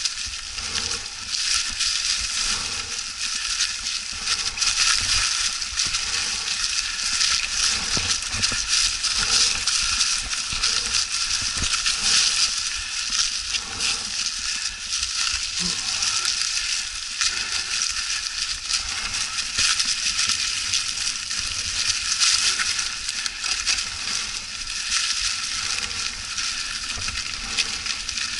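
Mountain bike tyres rolling through a thick layer of dry fallen leaves: a continuous crackling crunch, with a low rumble underneath and a few knocks along the way.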